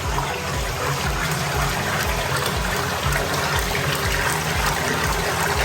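Lye solution pouring into a soap-making mixer full of oils, a steady rush of liquid over a low machine pulse about three times a second.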